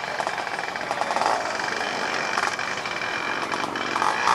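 A 500cc ATV engine running at low speed with a rapid, rough beat.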